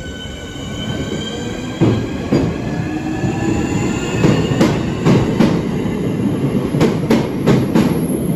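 Class 465 Networker electric multiple unit moving off past the platform: a steady electric traction-motor whine, then wheels clicking over rail joints in pairs. The clicks grow louder and come closer together as the train picks up speed.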